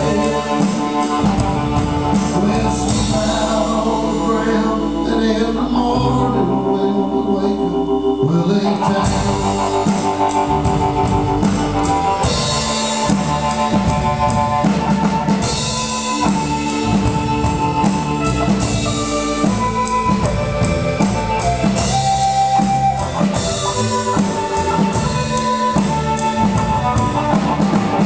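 Live country band playing: hollow-body electric guitar over upright bass and drums, the cymbals coming in strongly about twelve seconds in.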